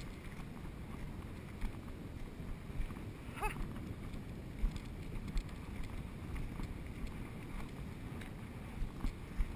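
Wind buffeting the microphone, with scattered small splashes of feet wading through shallow water over a reef flat. A brief chirp-like call about three and a half seconds in.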